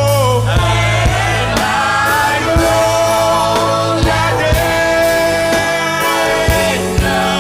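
Gospel worship song with singers holding long, wavering notes over instrumental backing.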